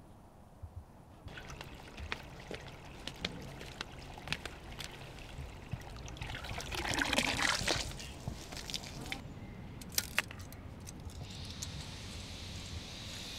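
Water running from a garden hose into a small pond, pouring and trickling, loudest about seven seconds in. A few sharp clicks come near the end.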